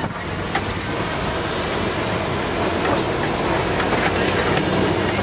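Open-sided safari ride truck driving along a dirt track: a steady rumble of engine and road noise, with scattered knocks and rattles as the vehicle jolts along.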